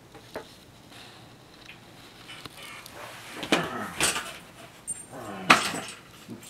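Australian Shepherd puppy making a few short vocal sounds while a hand plays with it; the loudest comes about five and a half seconds in.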